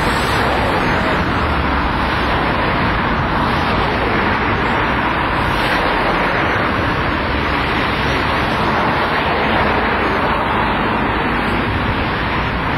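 Steady, even rush of road traffic noise with no distinct events.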